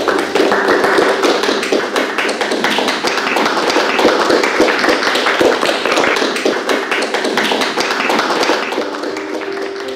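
A group of people applauding: many hands clapping at once in a dense, uneven patter that eases off a little toward the end.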